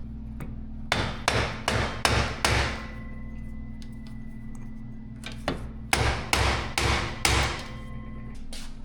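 Hammer striking metal in two runs of about five blows each, every blow followed by a short metallic ring. The blows come as suspension parts are being knocked loose during a teardown.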